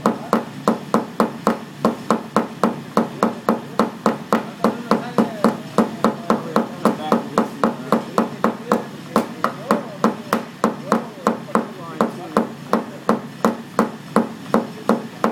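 Small hammer tapping a knockdown tool against a car's sheet-metal panel, an even run of light strikes about three a second, tapping down a high spot (crown) around a dent in paintless dent repair.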